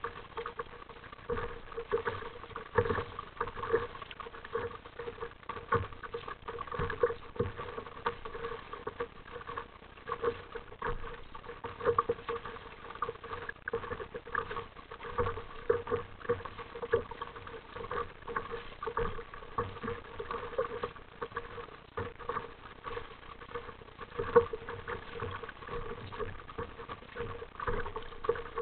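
Sea water slapping and splashing against the plastic hull of an RTM Mambo sit-on-top kayak as it moves through small chop: an irregular run of small knocks and splashes over a steady hum.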